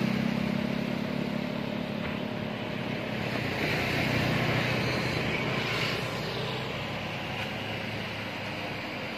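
Motor of a small wooden outrigger fishing boat running steadily, fading over the first few seconds, with the wash of breaking surf swelling about four seconds in.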